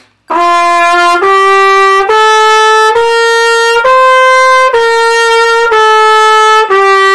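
Trumpet playing eight even, held notes of about a second each, stepping up the concert F major scale from F to C and back down to G.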